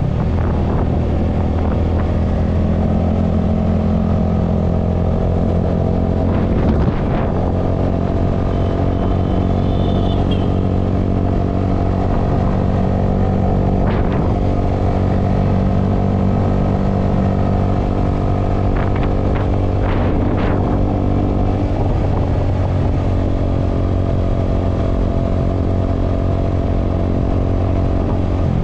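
Honda motor scooter's engine running at a steady cruise, recorded on board, with a few short knocks here and there.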